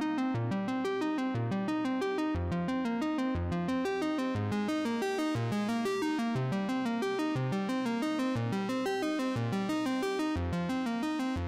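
Electronic synthesizer music: a quick, even run of repeated notes over a steady pulsing bass line.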